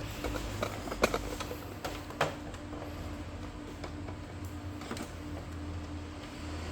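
Light clicks and knocks of hands handling printer parts and ink tubing, the sharpest about a second in and another about two seconds in, over a steady low hum.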